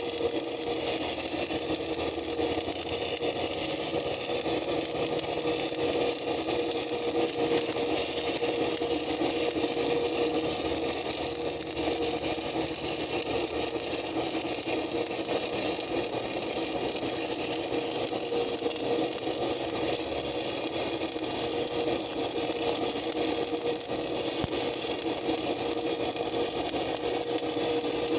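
Stick (SMAW) welding arc crackling and hissing steadily through one long weld run, over a steady hum from the welding machine. The arc breaks off at the very end.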